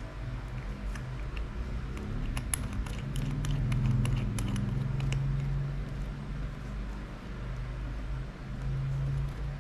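Light clicks of a gold-tone metal watch case and link bracelet being handled while the caseback is fitted back on, scattered through the first half. Under them runs a low steady hum that swells in the middle and again near the end.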